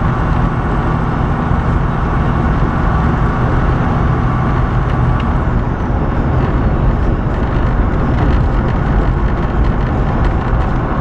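Inside the cab of a moving semi truck: the diesel engine and road noise run steadily at highway speed.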